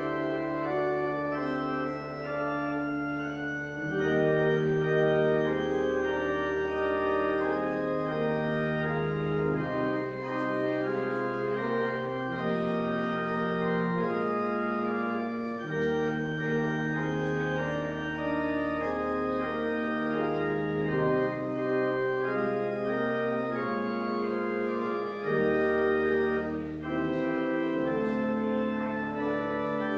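Church organ playing slow, sustained chords over held bass notes that change every few seconds.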